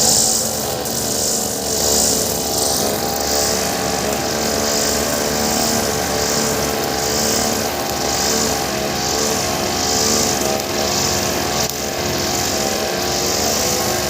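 Two-stroke brush cutter with a wire-cable cutting head running steadily while cutting grass, with a high hiss that swells and fades about once a second as the head is swept back and forth.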